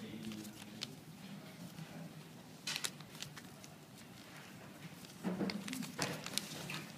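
A sheet of origami paper being folded and creased by hand: scattered crisp rustles and crackles, the louder ones about three seconds in and again between five and six and a half seconds.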